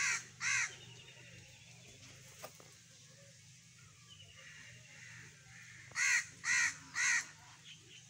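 A bird's harsh, cawing calls: two short calls at the start, then three more in quick succession about six seconds in.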